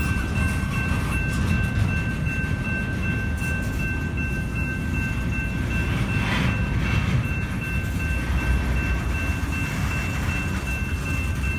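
Double-stack container train of well cars rolling past with a steady low rumble and wheel clatter. Two steady high tones run over it.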